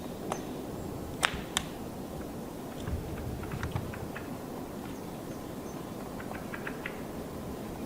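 Black woodpecker knocking and prying bark off a rotten trunk while foraging for insects and larvae. Two sharp knocks come a little over a second in, followed by scattered lighter taps and cracking bark.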